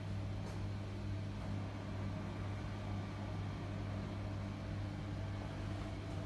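Steady low hum with a constant deep tone over a faint even hiss, from a machine or electrical appliance running.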